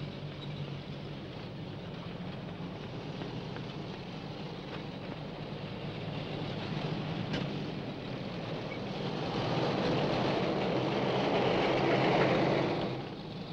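Military trucks and an armoured vehicle driving past in a column, engines running steadily with road noise; the sound grows louder about two-thirds of the way in as a truck passes close, then drops briefly near the end.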